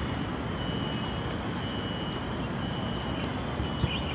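Steady low outdoor rumble with faint high steady tones above it, and a single short knock a little before the end.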